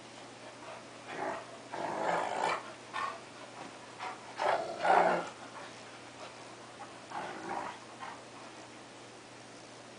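Two dogs, a cocker spaniel and a wolf-Akita mix, growling and snarling in rough play, in several short outbursts about a second in, around two seconds, loudest around five seconds, and again near seven seconds. It sounds fierce but is play.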